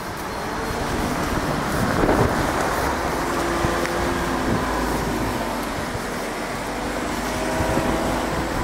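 Wind buffeting the microphone over the sound of road traffic, with a motor vehicle's engine drone rising about three seconds in.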